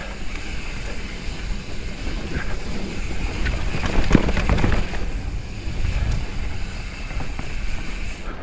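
Wind rushing over the microphone as a mountain bike descends a dirt trail, with a low rumble from the tyres rolling over the ground. Scattered rattles and knocks from bumps, the strongest about four seconds in.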